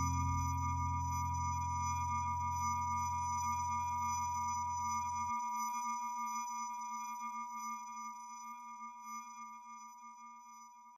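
Closing chord of the background music, held as steady electronic tones and slowly fading out; the low notes drop away about five seconds in.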